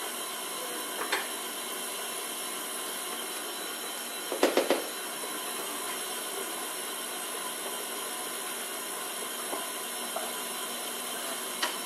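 KitchenAid Artisan stand mixer running steadily with its flat beater, mixing flour into a thick challah dough, its motor giving a continuous hum. A few quick knocks about four and a half seconds in, with fainter clicks around them.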